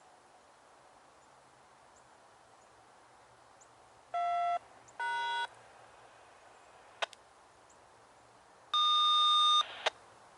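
Electronic beep tones over a railroad radio: two short tones of different pitch about four and five seconds in, then a louder, higher tone lasting about a second near the end, with a couple of sharp clicks between them.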